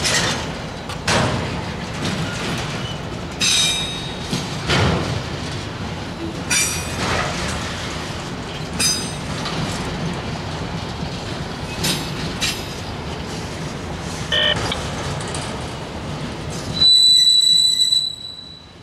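Autorack freight cars rolling past, their steel wheels rumbling on the rails with irregular clacks over rail joints and short metallic squeals. Near the end, a loud, sustained high-pitched wheel squeal lasts about a second.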